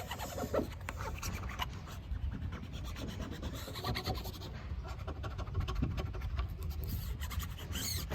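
Scratching and rubbing of a vinyl sticker being smoothed and pressed down onto car glass, with many small scrapes and clicks.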